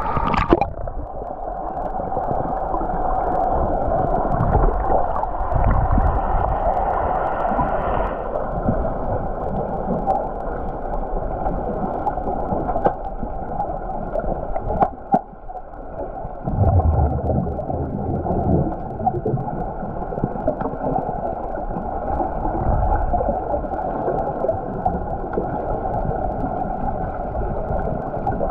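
Muffled underwater noise of a swimming pool, picked up by a submerged camera: a steady churning gurgle of water and swimmers' bubbles, dipping briefly about halfway and then swelling deeper.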